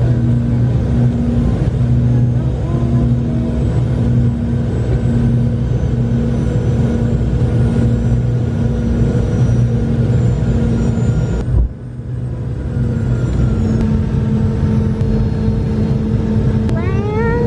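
Steady jet airliner cabin noise, the engines and airflow droning with low steady tones. It breaks off briefly about two-thirds of the way through, and a short rising whine comes near the end.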